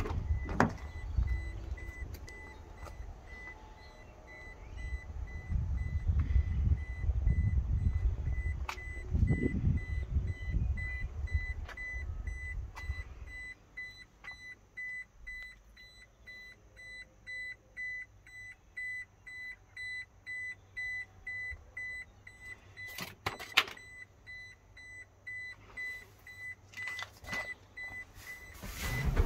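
Toyota Hilux cabin warning chime beeping at a steady, regular pace with the driver's door open, over low rumble in the first half. A few knocks come in the second half, and a thump right at the end.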